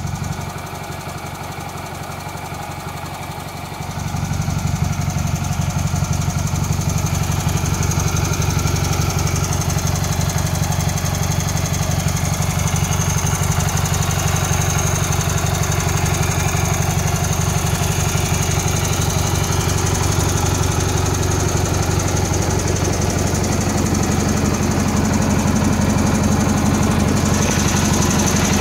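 International Cub Cadet 782 garden tractor's 18 hp Magnum engine running steadily, getting louder about four seconds in.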